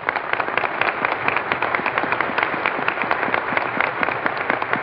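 Dinner audience applauding steadily, a dense patter of many hands clapping, heard through an old, narrow-band radio broadcast recording.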